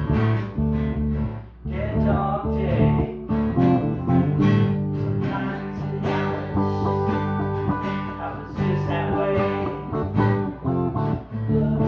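Stratocaster-style electric guitar strumming chords in a blues, with the player's voice singing along at times.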